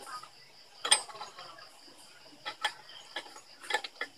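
Sharp metal clicks and taps of a GY6 scooter's kick-start spindle and gears being fitted by hand into the crankcase cover: one loud click about a second in, then a scatter of lighter clicks in the second half.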